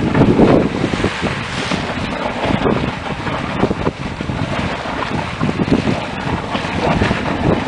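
Small hot-spring geyser erupting: water gushing and splashing in uneven surges, mixed with wind buffeting the microphone.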